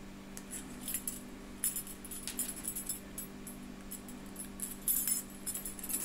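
Steel bicycle spokes clinking and jingling against a hub's flanges as they are threaded one by one through the flange holes: irregular light metallic clicks, busier in the second half.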